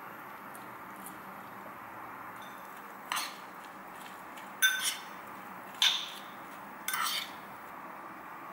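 A metal spoon clinking four times against a ceramic bowl while stirring chopped tomato and onion, each clink sharp with a short ring, over a faint steady hiss.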